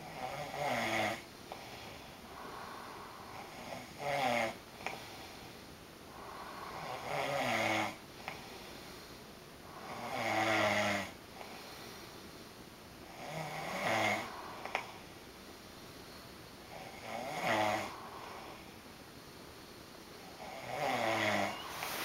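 A man snoring in his sleep: seven loud snores in a regular rhythm, one about every three and a half seconds, with quieter breathing between them.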